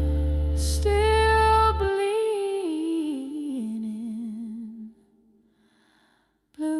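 Blues ballad ending: a wordless female hum with vibrato over a held low chord; the chord stops about two seconds in and the voice steps down and fades out. After a brief silence a new hummed note begins near the end.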